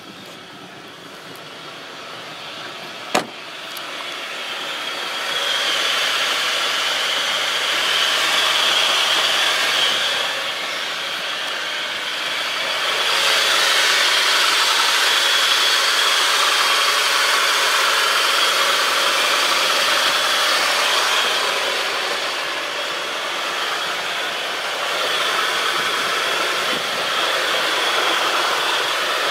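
Abnormal swishing, squeaking whine from the drivetrain of a Mitsubishi Chariot (N43W), a high-pitched hiss that swells about five seconds in and then rises and falls in level. At first taken for the brakes, it seems to come from the transmission and transfer case area. A single sharp click about three seconds in.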